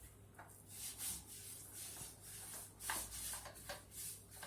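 Paint being spread on a wall in irregular, soft rubbing strokes, about one or two a second.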